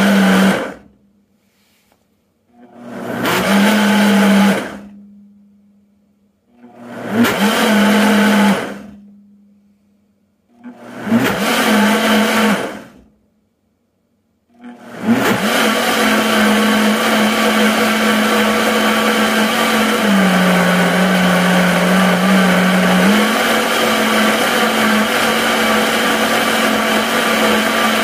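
Dynapro vacuum blender blending cashews and water in a vacuum-sealed jar on its combo program. It gives four short pulses of a couple of seconds each, then a continuous high-speed run through the second half. During that run the motor's pitch dips for about three seconds under load, then recovers.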